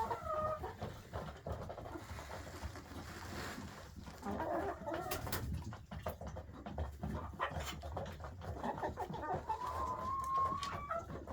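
Backyard poultry calling: a few short calls about four seconds in and one longer, slightly rising call near the end.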